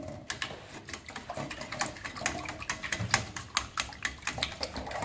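Raw eggs being beaten with two spoons in a stainless steel bowl: quick, irregular clicks of the spoons against the bowl with the wet slap of the egg.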